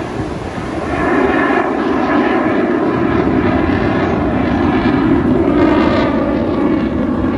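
Fighter jet flying past overhead, its loud engine roar swelling about a second in and staying strong.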